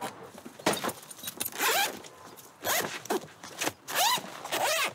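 Zipper of a large fabric equipment bag being pulled open in several short rasping strokes.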